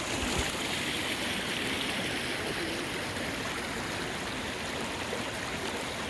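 Steady rushing of a flowing stream.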